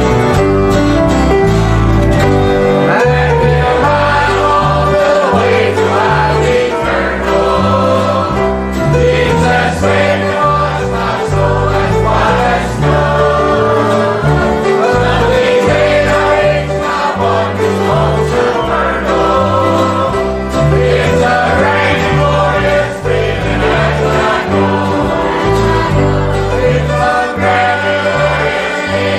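Church choir singing a gospel hymn, accompanied by guitars and a steady bass line. The voices come in about three seconds in, after a short instrumental lead-in.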